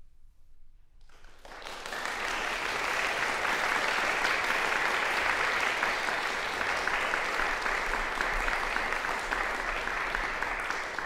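Audience applauding: after about a second of near quiet the clapping breaks out and then carries on steadily.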